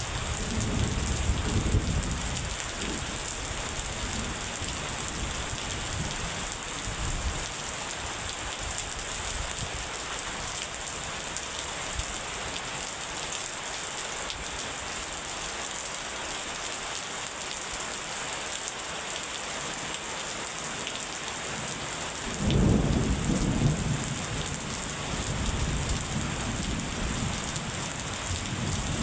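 Steady rain falling, with thunder rumbling: a rumble fading away over the first few seconds, a louder one breaking in about three-quarters of the way through and dying down, and another starting right at the end.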